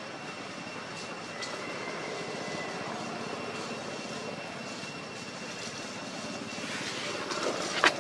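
Steady outdoor rushing noise, like a distant engine drone, with a faint thin high tone held throughout and a single sharp click just before the end.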